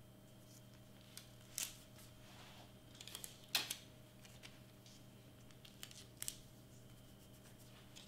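Clear Scotch tape and stiff cardstock being handled: a few short rips and crinkles as tape is torn off and pressed down across a seam between cardstock sheets, the loudest about three and a half seconds in.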